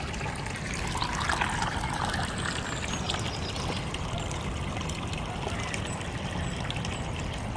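A small woodland stream trickling steadily.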